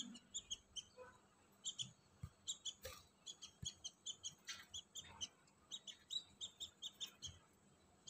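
Budgerigars chirping faintly: many short, high chirps, several a second, coming in clusters with brief gaps.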